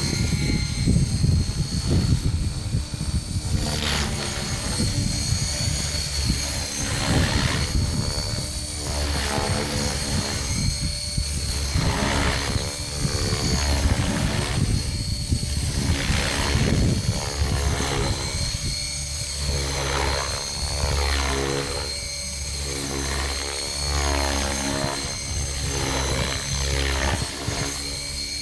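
Gaui X5 electric radio-controlled helicopter in flight: a steady high-pitched motor and gear whine over the rotor's buzzing, which swells and fades every few seconds as the helicopter manoeuvres.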